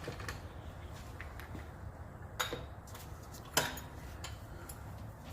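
Metal hand tools clinking: two sharp metallic clicks a little over a second apart, with lighter ticks between them, over a low steady hum.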